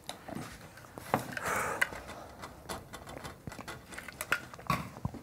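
Kitchen clatter: scattered light clicks and knocks of utensils, pots and dishes being handled, with a short rustling hiss about a second and a half in.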